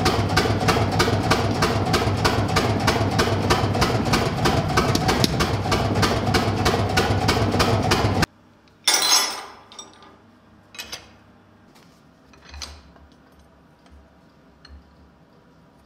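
Power hammer pounding a red-hot steel bar with rapid, even blows, about four a second, over a steady motor hum. The blows stop suddenly about eight seconds in. A single metallic clank and a few light taps follow.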